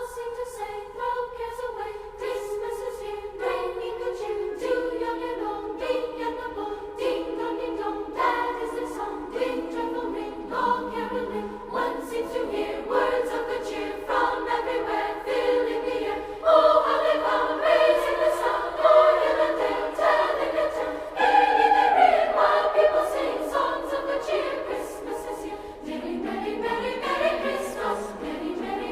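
Background music: choral singing, with several voices holding and moving between sustained notes, growing louder about two-thirds of the way through.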